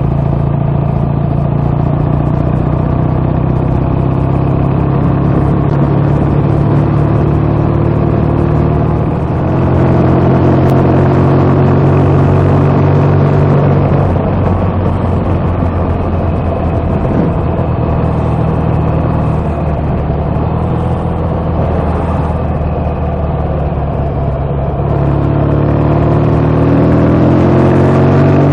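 BSA A65's 650 cc parallel-twin engine running under way. The note changes and gets louder about nine seconds in, and the revs climb steadily near the end as the bike accelerates.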